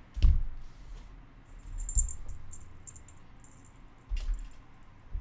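Handling noise from a Cooler Master Q300L steel-and-plastic PC case being turned over and set on a table: three dull low thumps, a quarter second in, at about two seconds and just after four seconds, with light clicks and rattles between them.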